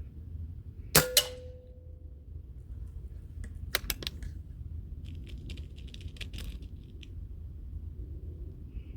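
A .22 pre-charged pneumatic air rifle firing: a sharp crack about a second in, with a second sharp crack a fraction of a second after it and a brief ringing tone. About three seconds later comes a quick run of clicks, then softer scattered clicking and rattling.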